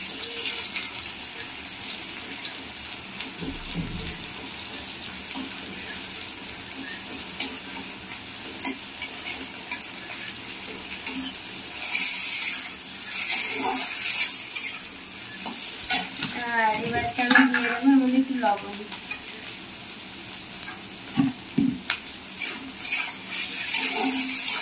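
Chopped vegetables sizzling as they stir-fry in an iron kadai, with a metal spatula scraping and knocking against the pan in repeated strokes. A brief wavering tone sounds about two-thirds of the way through.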